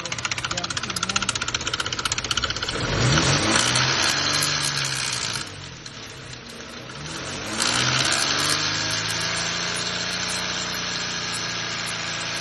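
Nissan VQ40 4.0 L V6 with a fast metallic timing-chain rattle at idle, then revved up about three seconds in, eased off, and held at higher revs from about eight seconds on, where the rattle fades into a smoother running sound. The chain is slapping its plastic guides: a worn timing chain and guides.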